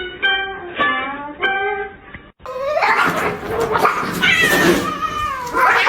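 A few seconds of plucked-guitar music, then after a sudden cut a domestic cat yowling loudly in long, wavering calls that rise and fall in pitch.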